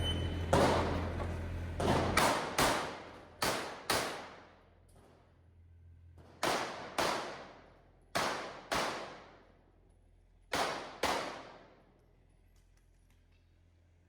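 9mm pistol gunfire: about a dozen shots, mostly in pairs about half a second apart with short pauses between pairs, each shot trailing off in echo. These are the double taps of a competition stage being shot.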